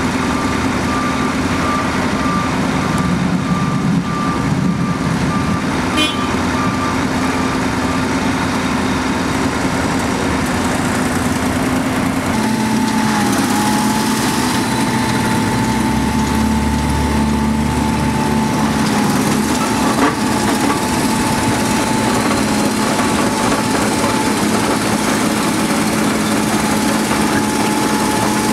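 Wirtgen W120F cold planer running steadily as it mills asphalt, its engine and cutter noise continuous. A truck's reversing beeper sounds over it for about the first eight seconds, and a steady high whine joins about twelve seconds in.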